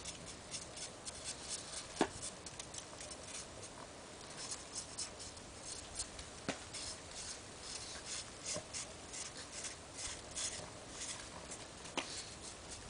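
Hands patting and rubbing packed snow while shaping a snowman: quick, irregular soft crunches and scrapes, with three sharper clicks spread through.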